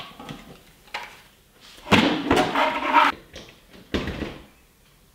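Handling noise from a 3D-printed plastic LED frame and its wiring being worked on at a table: a knock at the start, a short one about a second in, a longer stretch of clattering and rubbing around two to three seconds, and another knock about four seconds in.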